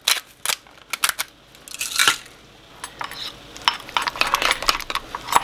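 Metal fork clinking and scraping against a small ceramic bowl while stirring a thick blue cheese and sour cream dressing. The clinks are scattered at first and come thick and fast over the last couple of seconds.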